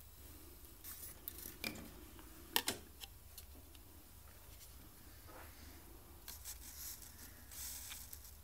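Faint handling noises from a plastic scale model and small hobby tools: a few sharp clicks, the loudest about two and a half seconds in, then soft rubbing near the end.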